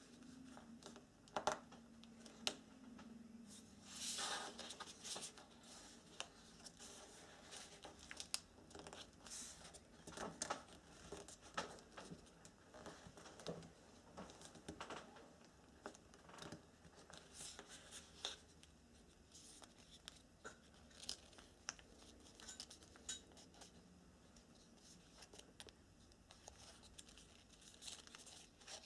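Origami paper rustling and crinkling as hands fold, crease and slot the pieces together, in scattered short crackles with a longer rustle about four seconds in.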